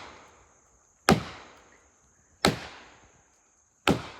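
A steel felling wedge being pounded into the cut of a poplar to tip over a tree that won't fall: three sharp, evenly spaced strikes about a second and a half apart, each ringing briefly. A steady high insect drone runs underneath.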